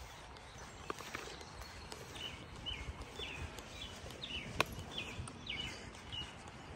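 Footsteps of a person walking across dry grass and onto pavement, while a bird chirps a quick run of short, high notes through the middle. A single sharp click about four and a half seconds in.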